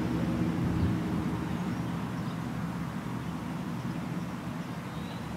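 A distant motor vehicle's engine droning low and steady, slowly fading away as it passes.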